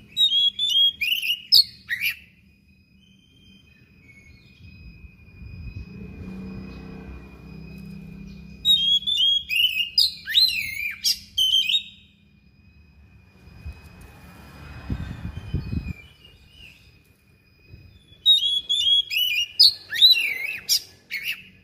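Oriental magpie-robin singing three loud phrases of quick, sliding whistles and sharp notes, each a few seconds long and roughly eight seconds apart.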